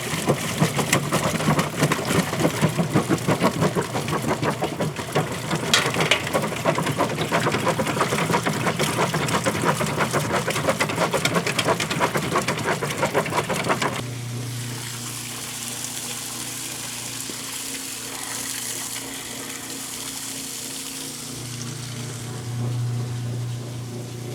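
Kenmore direct-drive top-loading washing machine running with its lid open: the agitator churns the water with rapid, irregular splashing for about fourteen seconds. Then the churning stops abruptly and a steady motor hum with a hiss carries on. The machine now runs because its failed lid switch has been bypassed.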